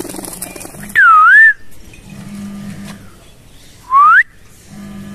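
A person whistling to call back a pet parakeet: a wavy up-and-down whistle about a second in, then a short rising whistle near four seconds.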